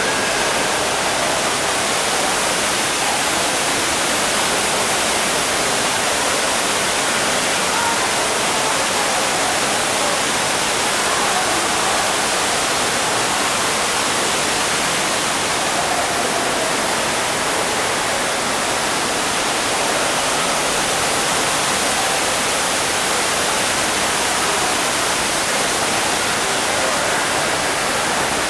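Steady, loud rush of a tall indoor waterfall pouring down into its pool, an even wash of noise with no break or change.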